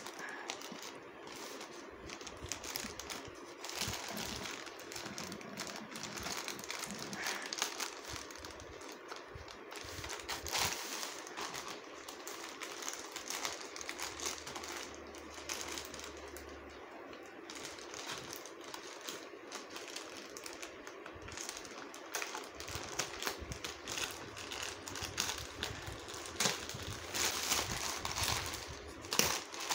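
Plastic courier mailer bag crinkling and rustling as it is handled and cut open with scissors, an uneven run of small crackles and clicks.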